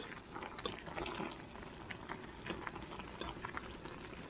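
A pot of water boiling with instant noodles in it, stirred with a fork; small, irregular clicks of the fork against the stainless steel pot over the steady bubbling.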